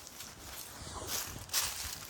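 Footsteps of someone walking down a mountain path: a few short, scuffing steps about half a second apart.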